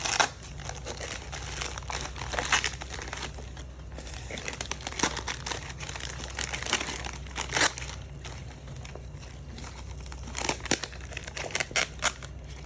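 Gift wrapping paper crinkling and tearing in irregular bursts as a present is unwrapped by hand.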